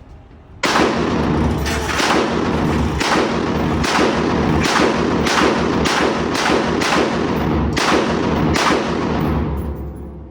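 Draco AK-pattern pistol fired semi-automatically in a rapid string of about fourteen shots, roughly two a second, each shot trailing off in echo.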